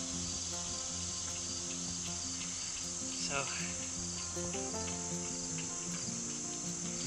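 Steady high-pitched chorus of summer insects chirring, with low held tones shifting every second or so underneath.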